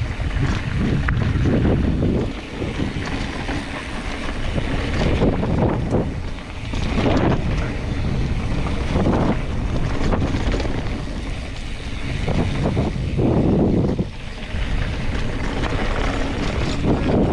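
Wind buffeting the microphone of a mountain bike descending a dirt and gravel trail at speed, mixed with the tyres rumbling and the bike rattling over the rough surface. The rush swells and eases every few seconds as speed and terrain change.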